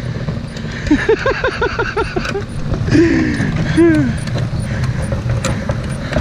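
Strong wind rushing over the microphone. About a second in, a rapid run of short squeaky notes, then two falling squeals near three and four seconds.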